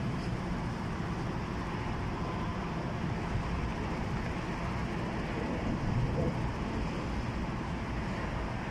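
Steady rumble of road traffic on the elevated highways overhead.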